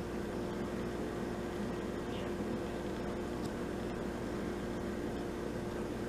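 Steady hum of a small motor with one constant low tone, and a few faint soft ticks as a cat laps water.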